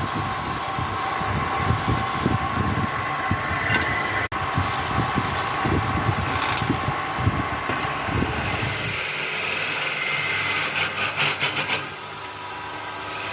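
Electric woodworking power tool running steadily on wood, with a steady motor whine and an uneven low rumble. It breaks off for an instant about four seconds in, and near the end there is a run of quick rattling clicks before the low rumble drops away.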